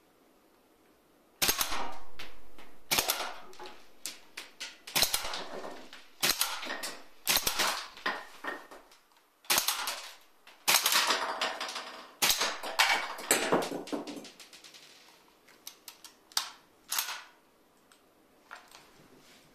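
Replica M1 Garand rifle firing about eight to ten shots at uneven intervals, each a sharp report with a metallic ring that dies away. Near the end there are a few lighter clicks from the rifle's action.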